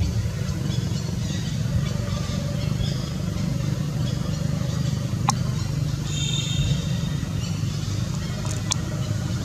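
Steady low engine hum, like motor vehicles running nearby. Two sharp clicks, about five and nine seconds in, and brief faint high chirps around six to seven seconds in.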